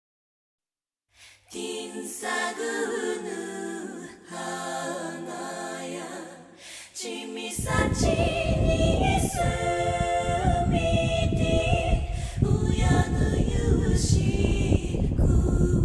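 Background music: a sung vocal piece with several voices, starting after about a second of silence. A dense low rumble joins about halfway in and runs under the singing.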